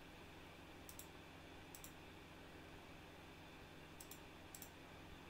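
Four faint computer mouse clicks, each a quick double tick of press and release, over near-silent room tone.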